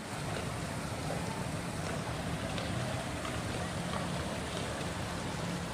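Steady low engine hum with an even rushing noise over it.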